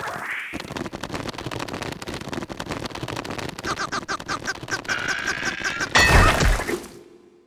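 Cartoon earthquake sound effects: a low rumble with rapid rattling and knocking, a high pulsing squealing cry from about three and a half seconds in, and a loud crash about six seconds in that fades away.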